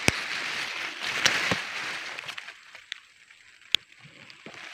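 Grass and leaves rustling with handling noise, and two sharp clicks, one at the very start and one near the end. The rustling dies down about halfway through.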